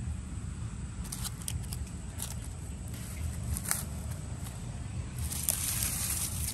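Dry reed and grass litter crackling and rustling as it is handled, with scattered sharp crackles and a louder, denser rustle near the end, over a low steady rumble.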